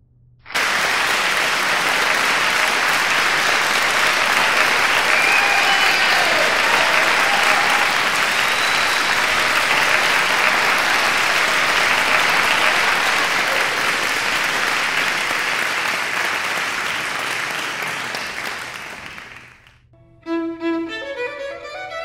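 Applause from an audience, starting suddenly and holding steady, then dying away near the end. A violin melody begins just after it.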